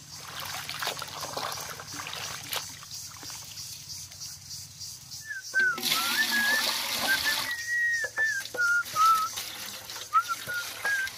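Water sloshing as sliced potatoes are washed by hand in a large aluminium bowl, then about five seconds in a loud rush of water poured from a plastic bucket into a metal pot, lasting about two seconds, with more splashing pours near the end. A wavering high whistle runs through the second half.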